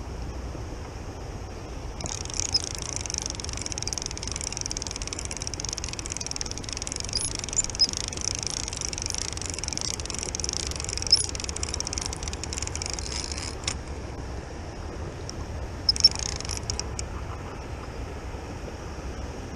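Spinning reel being cranked while playing a hooked carp: a steady high whirr starts about two seconds in and stops abruptly a bit past the middle, then a shorter burst comes near the end. A low steady rumble sits underneath.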